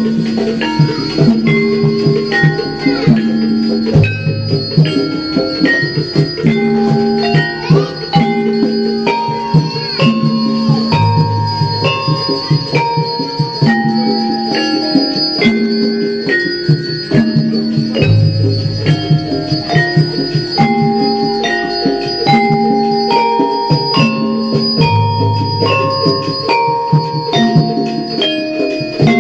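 Gamelan music: metal keyed instruments and gongs playing a short, bright melody that cycles over and over at an even pulse, as for a temple dance.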